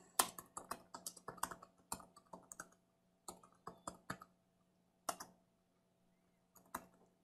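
Typing on a computer keyboard: a fast run of keystrokes, a short pause, then a few slower, scattered keystrokes, one louder click about five seconds in and a pair near the end.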